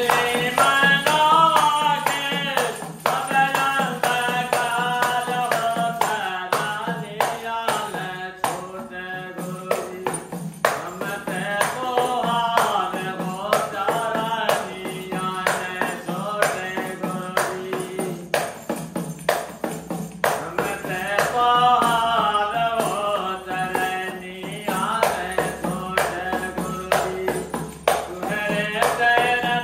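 A man singing a devotional bhajan solo, accompanying himself with steady hand strokes on a small tambourine whose metal jingles rattle with each beat. The singing pauses briefly a couple of times.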